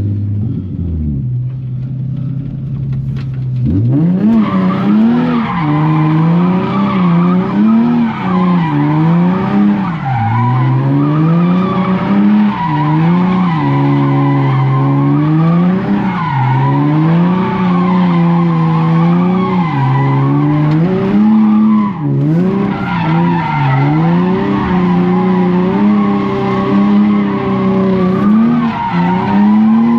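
Nissan 350Z's 3.5-litre V6 with a loud exhaust, idling steadily at first, then from about four seconds in revving hard, its pitch climbing and falling again and again every second or two.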